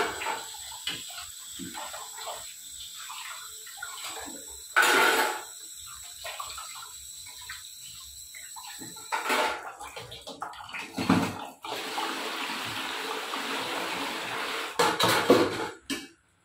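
Kitchen tap running into a steel sink while utensils are rinsed by hand, with water splashing off dishes. Now and then the aluminium and steel pots clatter against each other, about five seconds in, a few times past the middle, and again near the end.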